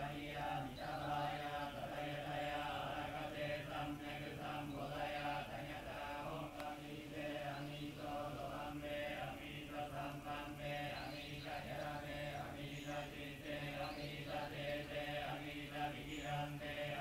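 Shingon Buddhist monks chanting a sutra together on one low, steady pitch, the voices pulsing in a regular rhythm without a break.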